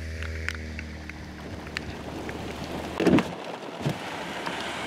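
A rally car's engine running at a steady pitch as it passes on a wet road, then a sudden change to rain falling on a car, with a loud thump about three seconds in and another near four seconds.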